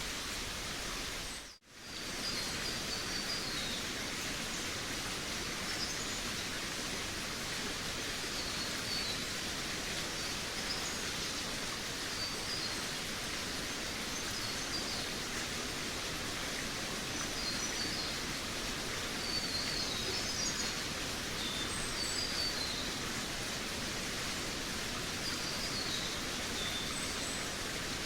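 Forest ambience: small birds chirping in short, high twittering phrases every second or two over a steady rushing hiss. The sound drops out abruptly for a moment about a second and a half in.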